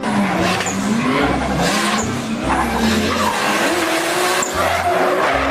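Race car engine running with a wavering note, mixed with tyre squeal and skidding.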